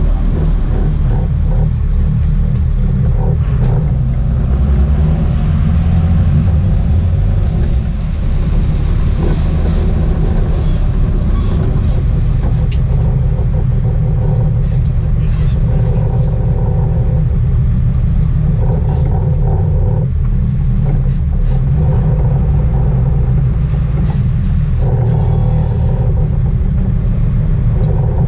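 A sportfishing boat's engines running at a steady trolling speed, a loud continuous low rumble mixed with wind and water noise.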